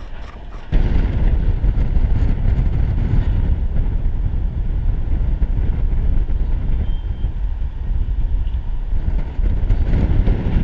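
Wind buffeting the camera's microphone high on an open crane: a loud, steady low rumble that starts abruptly just under a second in.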